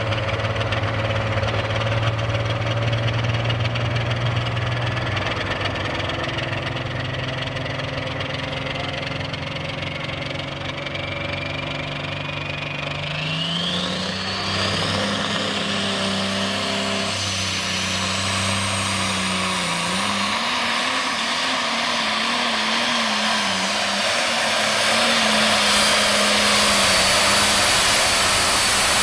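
A modified John Deere pulling tractor's engine idles steadily while hooked to the sled. About halfway through it revs up, with a whine rising in pitch, and then runs hard as the tractor pulls the sled. It gets louder near the end.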